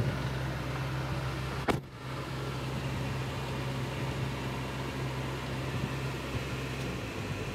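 1994 Subaru Sambar's engine idling steadily with the AC blower hissing air through the dash vents, heard inside the cab. A single knock about two seconds in.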